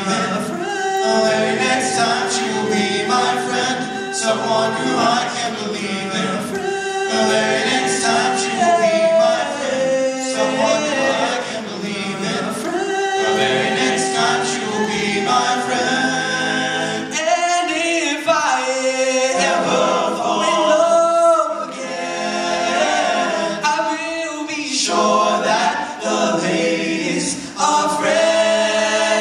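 Male a cappella group of six singing in close harmony into handheld microphones, with held chords and moving voice lines and no instruments.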